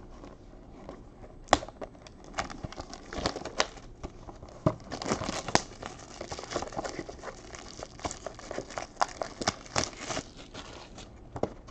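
Plastic wrap on a sealed trading-card box crinkling and tearing as it is pulled open by hand, with irregular crackles and rustles that come thickest in the middle and later part.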